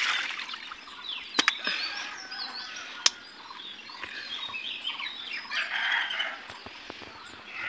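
Birds chirping and calling in short, gliding notes, with two sharp clicks about one and three seconds in.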